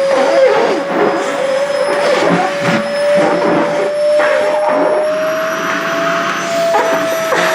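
Sharp EC-KP7F-A vacuum cleaner running with a steady motor whine that creeps slightly higher in pitch, over irregular fluttering and rustling as dress fabric is sucked against the nozzle.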